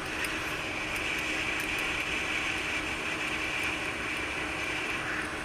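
Hot air rework station blowing, a steady airflow hiss with a faint low hum, used to heat cured UV solder mask so it cleans off the board.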